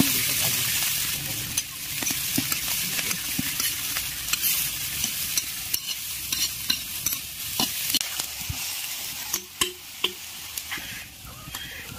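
Sliced red onions frying in hot oil in a large iron wok: a strong sizzle that is loudest at first, just after the onions go in, and eases off gradually, with the scrape and clack of a metal spoon stirring them.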